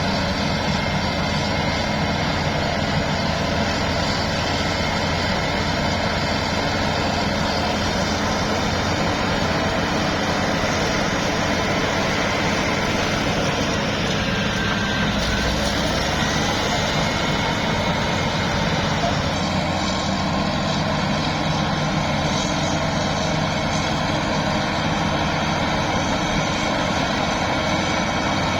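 Heavy machinery's diesel engine running steadily under load, with a dense, unbroken mechanical din.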